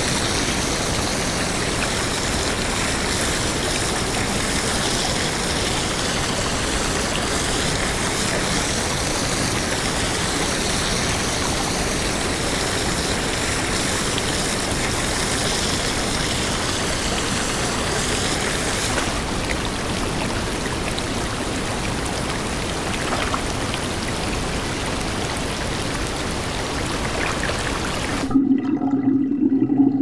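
Small waterfall pouring steadily onto a man sitting beneath it and splashing into a shallow pool. It cuts off suddenly near the end, leaving a quieter, uneven sound with a low hum.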